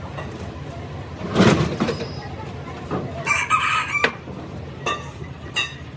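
A rooster crowing once for about a second, starting about three seconds in, followed by two short calls. A louder noisy clatter comes about a second and a half in, over a steady low background hum.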